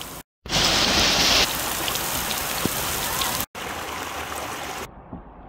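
Heavy rain pouring onto a road, a steady hiss that is brightest in the first second; about three and a half seconds in it cuts to muddy floodwater rushing over rocks, and near the end to a quieter, duller rush of water.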